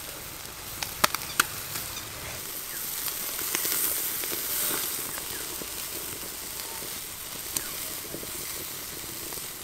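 Oil-brushed chicken leg pieces sizzling on a wire mesh over a hot open fire, with a few sharp crackles about a second in and one more later.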